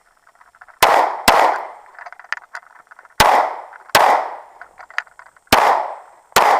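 Semi-automatic pistol firing six shots in three quick pairs, each pair followed by a short pause, every shot leaving a brief echoing tail: a timed string at a pistol match.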